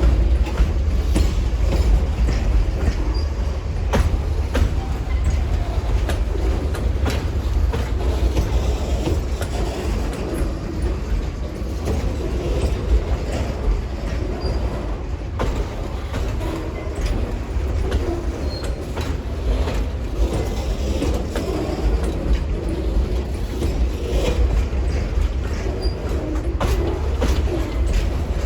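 A long Amtrak Auto Train rolling steadily past with a continuous low rumble. Its wheels knock irregularly over rail joints, and a few brief faint high squeaks come from the wheels.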